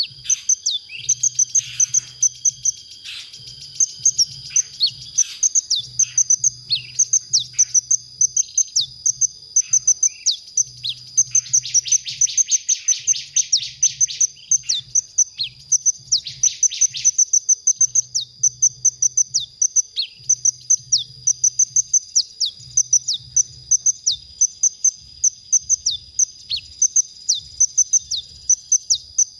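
Purple-throated sunbird (kolibri ninja) singing: a fast, unbroken run of short, high, thin chirps, with dense trills about twelve and sixteen seconds in.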